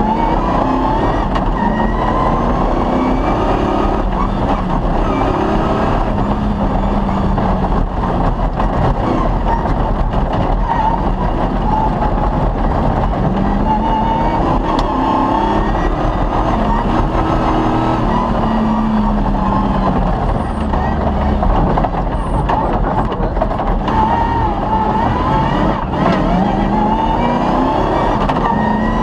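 Off-road rally vehicle's engine running hard on a stage, its revs rising and falling over and over as it accelerates and shifts, over a steady rush of road and wind noise.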